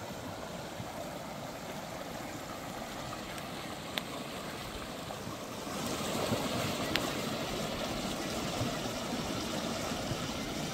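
A mountain creek rushing steadily, an even wash of water noise that gets a little louder about six seconds in, with a couple of faint clicks.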